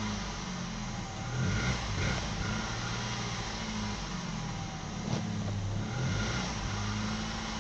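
A 2013 Nissan X-Trail's 2.0-litre four-cylinder petrol engine running, heard from inside the cabin, its revs settling from about 1,800 to about 1,000 rpm.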